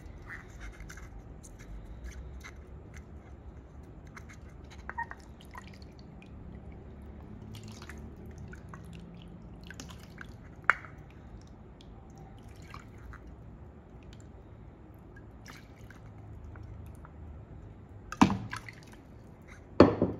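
Water poured from a glass jar into a plastic measuring cup and tipped into the natto maker's water tray, with drips, light taps of the cup and a few sharp knocks, the loudest two near the end.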